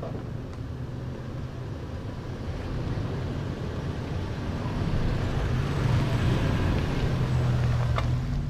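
Toyota 4Runner's V6 engine running at a slow crawl over rock, its low hum growing louder as the SUV drives close past. A single sharp click near the end.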